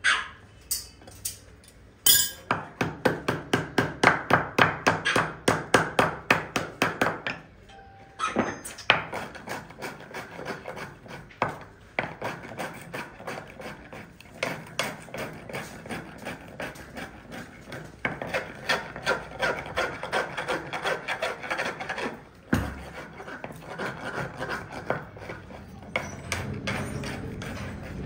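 Farrier shoeing a horse: a quick, regular run of hammer strikes, about three or four a second, followed by long stretches of repeated rasping strokes on the hoof.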